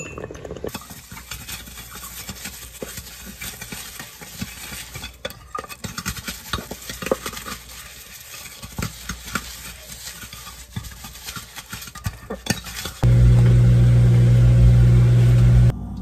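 Food sizzling and crackling in a hot pan, with scattered clinks and scrapes of a utensil. Near the end a loud steady low hum starts abruptly and cuts off sharply after under three seconds.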